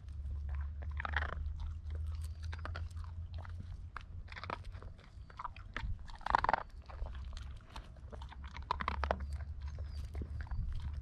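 Hungry pet animals chewing and crunching food in irregular bites, over a low steady rumble.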